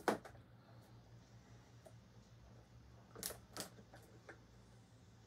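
Hard plastic parts of a Star Wars Black Series Shadowtrooper helmet clicking as its inner head brace and straps are handled and fitted: one sharp click at the start, then a few softer clicks about three seconds in.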